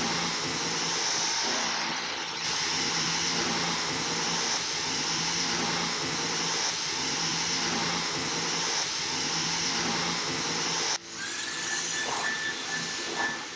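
Dyson cordless stick vacuum running steadily, a rushing airflow with a high whine and a low hum. Near the end it drops out briefly and comes back with a thinner, higher tone.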